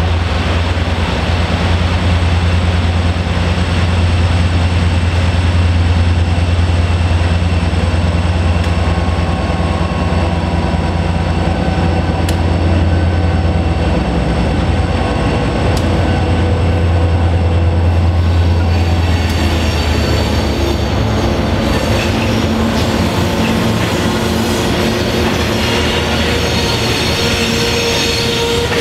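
A pair of EMD GP39-2 diesel locomotives, turbocharged V12s, running under power with a deep steady drone as the train passes. After about twenty seconds the engine drone fades and freight cars roll by, wheels squealing and screeching on the rails.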